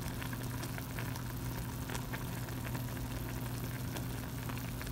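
Bell peppers and onions simmering in a skillet with brats, with small scattered pops and crackles over a steady low hum.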